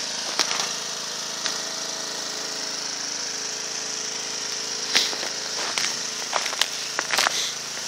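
Footsteps crunching through deep snow, sparse at first and coming in a quick run from about five seconds in, over a faint steady engine hum.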